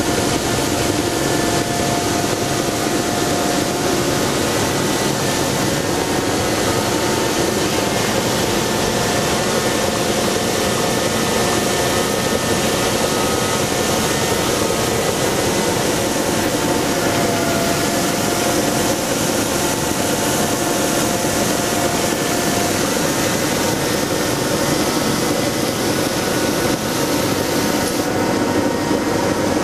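Ice edger running steadily as its cutting head cuts deep into overgrown rink ice: a loud, even machine noise with steady whining tones over a dense hiss. Near the end the high hiss drops away.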